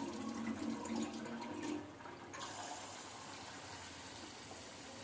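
Tap water running steadily into a steel bowl of rice as the rice is washed, the flow changing briefly about two seconds in.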